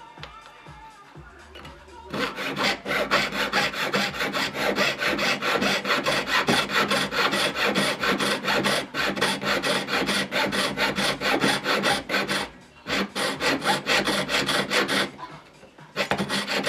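Jeweller's piercing saw cutting through a metal strip: quick rasping back-and-forth strokes, about five a second, starting about two seconds in, with a short break and stopping shortly before the end. The blade is sticking a little in the cut.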